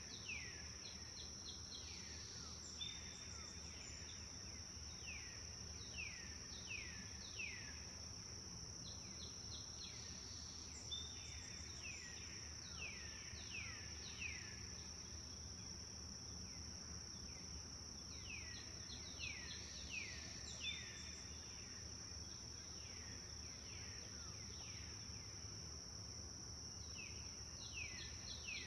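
Forest ambience: a steady, high-pitched insect drone runs throughout, while birds give bouts of repeated calls that sweep down in pitch, several in quick succession, returning every few seconds. A low background rumble sits underneath.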